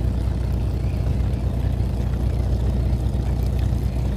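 Fishing boat's engine running steadily at idle, a constant low hum.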